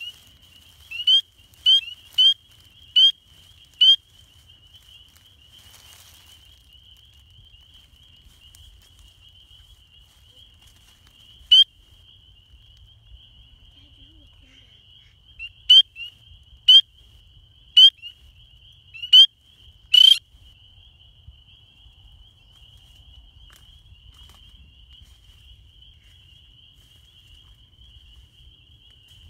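Spring peepers calling. A nearby male gives loud, short, rising peeps in runs: about six at the start, one alone near the middle, and another five about two-thirds in. Under them runs a steady high chorus of many more distant peepers. These are the males' breeding calls.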